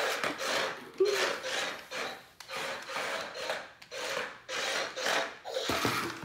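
A cat scratching at the inside of a cardboard box: a run of rasping scratches on the cardboard, about two a second.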